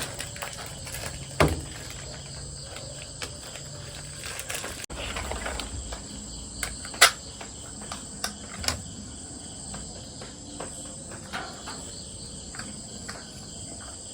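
Steady high-pitched insect chirring in the background, with a handful of sharp clicks and knocks, the loudest about seven seconds in.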